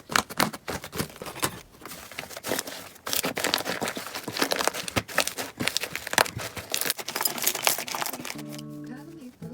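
Slime being squeezed and worked by hand, making a dense, irregular run of sticky clicks and crackles that stops about a second before the end.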